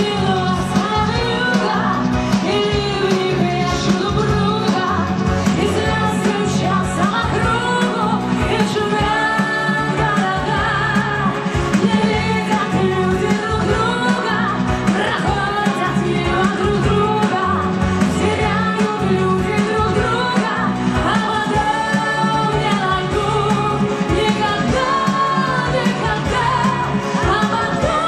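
A woman singing a pop song into a microphone over a loud backing track with a steady beat.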